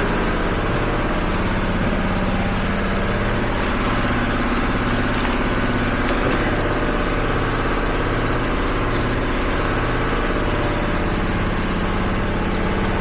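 An engine idling steadily, with a low throb that swells and fades evenly about once a second.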